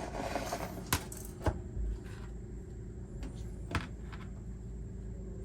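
A few sharp, light metallic clicks and taps from handling a hot-staple plastic welder and its small metal staples, over a steady low hum.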